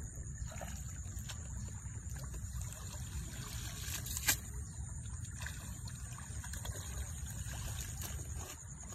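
Water trickling and dripping as clumps of wet grass and weeds are pulled up out of shallow muddy paddy water, with a single sharp click about four seconds in.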